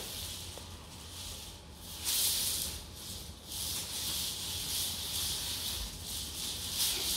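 Plastic hula hoop spinning around a child's waist, making a hissing swish that comes in surges and runs steadier from about four seconds in.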